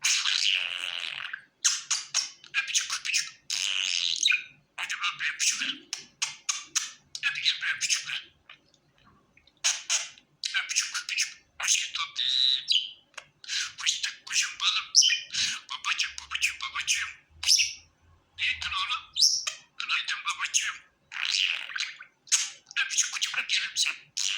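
Pet budgerigar chattering and chirping in quick runs of short, high-pitched calls, with a brief lull about eight seconds in.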